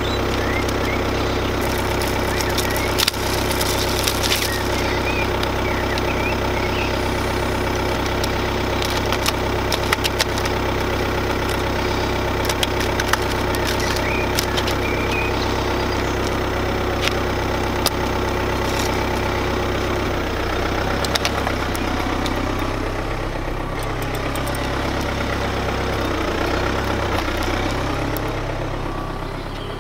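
Car engine idling steadily, with scattered short clicks over it; the engine's even hum becomes less even about two-thirds of the way through.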